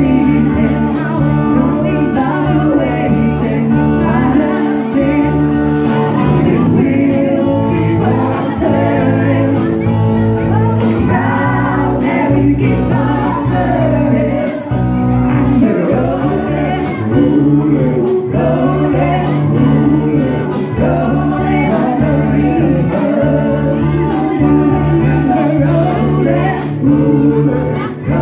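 Live swing band playing loudly, with women singing lead and backing vocals over electric guitar and drums keeping a steady beat.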